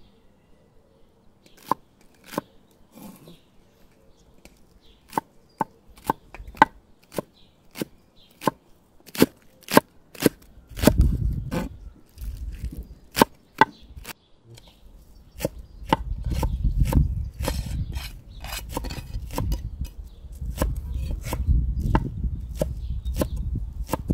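Large kitchen knife chopping green onions on a wooden cutting board: a run of sharp, irregular knocks that grow quicker and denser, with a low rumble underneath in the second half.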